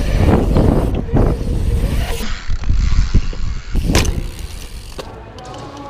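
Mountain bike's tyres rolling fast over concrete, with wind rumbling on the handlebar-mounted camera's microphone. A single sharp knock about four seconds in, then the rolling grows quieter.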